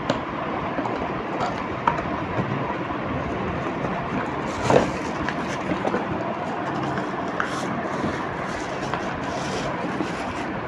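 Cardboard packaging of a travel mug being opened and its paper wrapping handled, rustling and crinkling, with several short louder crackles, over a steady background hiss.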